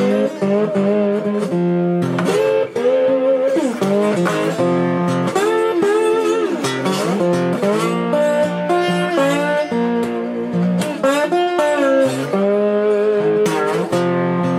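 Three-string cigar box guitar played with a slide: a blues line of picked notes, many of them gliding up and down in pitch.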